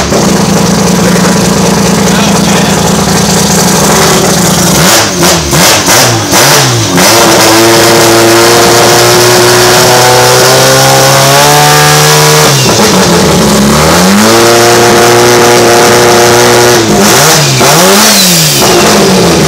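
Turbocharged rotary engine of a Mazda RX-8 drift car, revved from idle. First a few quick blips, then it is held at higher revs and stepped up further. It drops back, is held up again, gets a few more blips near the end and settles back to idle.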